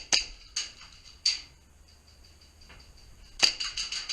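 Airsoft guns firing: three single shots in the first second and a half, then a quick burst of about six shots near the end.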